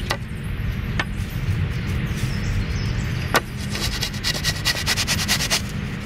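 Background music with a steady low bass and a few sharp clicks, then a quick run of ticks in the second half.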